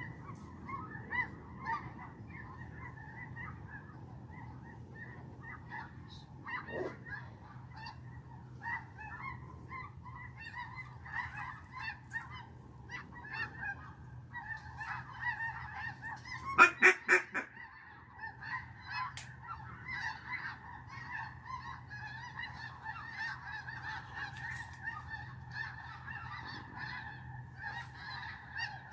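A flock of waterfowl calling continuously, a steady honking and quacking chatter. About two-thirds of the way through, a loud, close series of about six quick quacks stands out, like a hunter's duck call.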